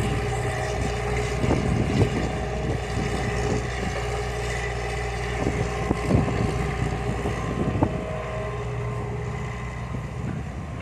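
Hitachi hydraulic excavator's diesel engine running steadily while it digs and loads soil, with a few short knocks and clunks from the work.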